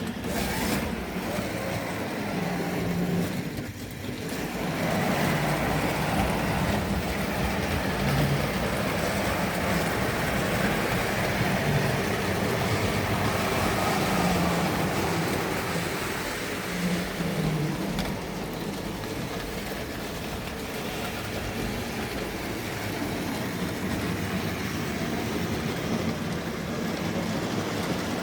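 Tri-ang OO gauge model trains running on the layout: a steady rumble and whirr of small electric motors and metal wheels on track. There is a brief dip about four seconds in.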